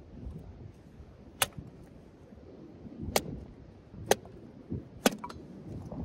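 Four sharp clicks over a low rumble. The first comes about a second and a half in; the other three follow roughly a second apart.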